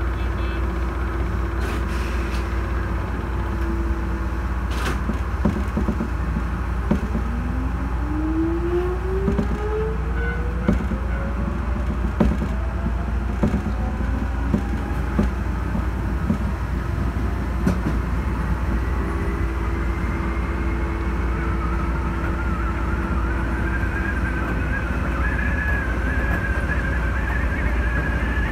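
Keisei electric commuter train picking up speed, heard from just behind the driver's cab: a steady low rumble with a motor whine that rises in pitch over about ten seconds. Wheels click over rail joints at intervals, and a higher wavering whine comes in near the end.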